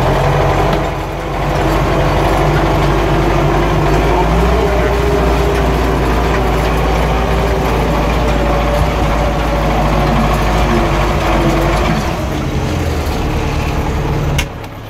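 Tractor engine running steadily while pulling a disc harrow, heard from inside the cab. Near the end there is a sharp click and the sound drops.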